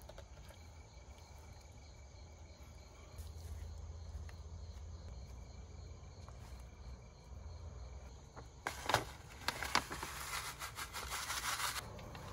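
Insects, likely crickets, chirping faintly and steadily over a low outdoor rumble. About nine seconds in, a burst of crackling, rustling noise lasts about three seconds, then stops.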